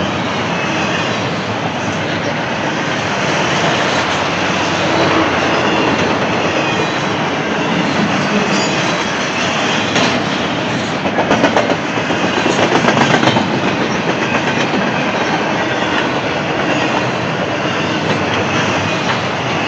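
Double-stack container well cars of a freight train rolling past: a steady rush and rumble of steel wheels on rail. A run of rapid clickety-clack from wheels crossing rail joints comes a little past halfway.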